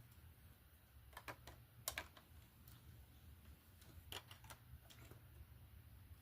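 Faint plastic clicks and taps of LEGO pieces being handled and pressed together, in two short clusters about a second in and about four seconds in, over a low steady hum.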